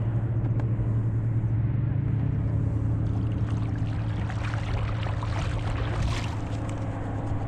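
Steady low motor drone with a constant pitch, with scattered light clicks and knocks over it.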